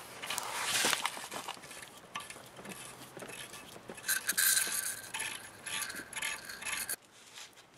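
Light metallic scraping and clinking as a steel ARP head stud is turned by hand into the threads of an aluminium Honda B-series engine block. It stops abruptly near the end.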